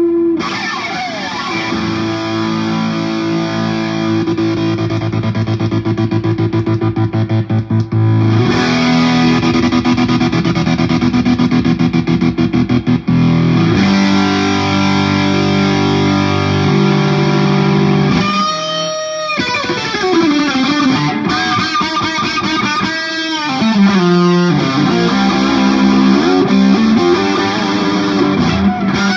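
2019 Knaggs Kenai electric guitar played through a Marshall JCM 2000 tube amplifier with overdrive distortion. Held and rapidly picked chords in the first half give way about two-thirds of the way in to a lead line with sliding, bending notes.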